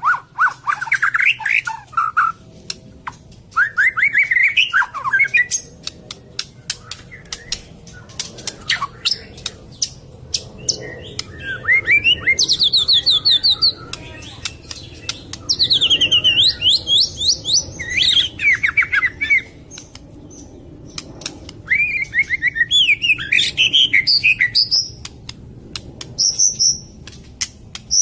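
White-rumped shama singing in the harsh, rapid-fire 'tembakan kasar' style: loud phrases of fast repeated notes sweeping up and down, some rising very high, separated by short pauses and many sharp clicks.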